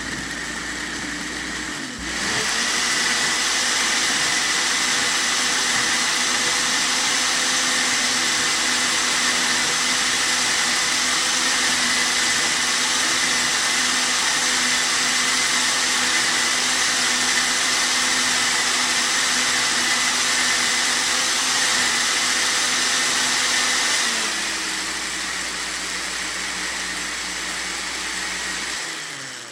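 Electric kitchen blender running: its motor steps up from a lower speed to a higher, louder one about two seconds in, holds a steady whine, then drops back to the lower speed near the end and winds down as it is switched off.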